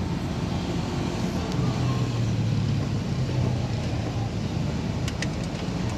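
A car engine idling steadily, a low hum that grows slightly stronger between about one and a half and three and a half seconds in, with a few faint clicks near the end.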